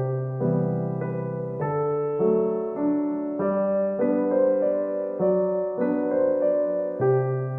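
Background music: piano playing a gentle, slow melody over sustained chords, notes changing about every half second.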